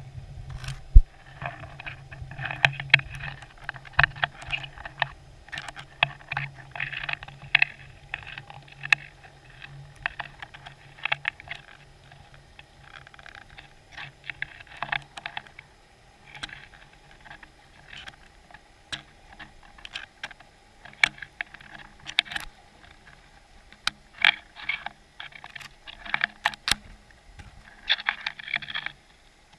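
Irregular clicking and crackling heard underwater, coming in clusters throughout, over a low hum that fades out during the first ten seconds or so.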